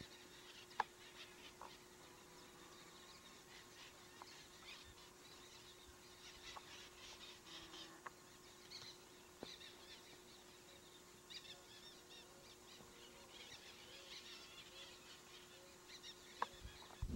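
Near silence with faint bird chirping, a few soft clicks and a faint steady hum.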